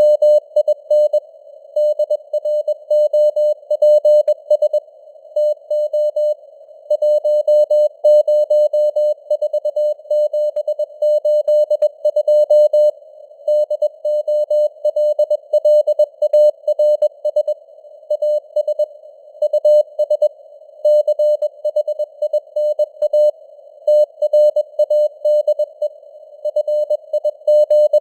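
Morse code (CW) sent at 21 words per minute as a single steady-pitched tone keyed in dots and dashes with short gaps between words. It sits in a narrow band of simulated radio hiss, and its strength fades up and down (QSB).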